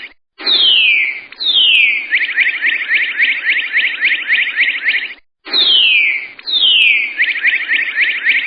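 A bird's song: two descending whistled notes, then a rapid run of short chirps at about six a second. The phrase repeats after a brief pause about five seconds in.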